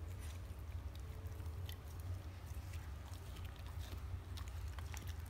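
German Shepherd chewing and mouthing a chunk of raw New York strip steak, with scattered short smacks and clicks, over a steady low hum.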